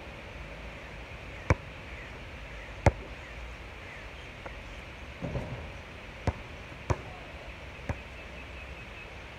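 A basketball being shot and bounced on an outdoor court: about five sharp knocks at uneven intervals, with a brief rattle around the middle, over a steady hiss.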